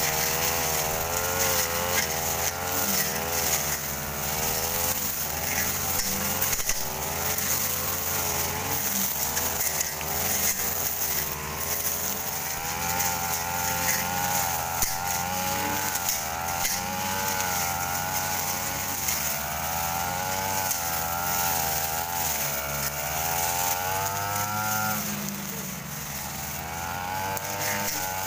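Two backpack brush cutters running together as they cut through ferns and undergrowth. Their small engines keep rising and falling in pitch as the cutting heads load and unload.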